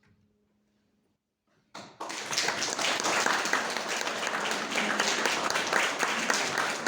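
A short hush, then audience applause breaks out about two seconds in and carries on as steady clapping.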